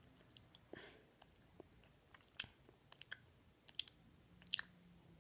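Faint, sharp clicks, about a dozen at uneven intervals over near silence, the loudest a little before the end.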